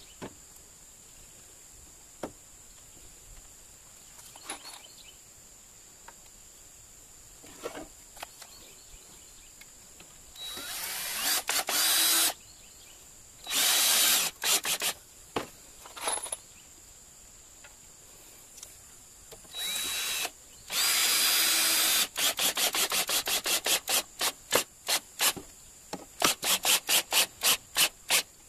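Cordless drill driving a screw through a small wooden block into a round timber, running in a few short spells that start about ten seconds in, then pulsed in rapid bursts of about four a second near the end as the screw is seated. Small handling clicks before the drill starts.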